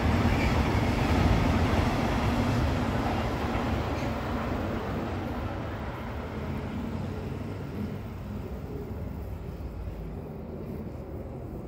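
Freight train rolling past on the far track, a steady rumble of wheels on rail that fades away as the last wagons pass and the train moves off.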